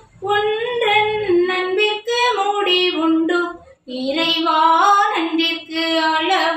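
A woman singing a Tamil thanksgiving hymn solo, in held phrases with a short pause for breath about four seconds in.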